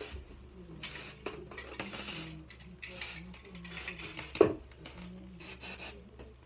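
Aerosol hairspray can sprayed onto hair in several short hissing bursts, with one sharp click a little past the middle.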